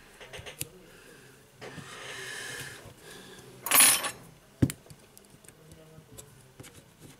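Small parts of a tablet being handled by hand: light clicks and taps, a scratchy rustle lasting about a second, a louder short rustling burst about four seconds in, then a sharp tap.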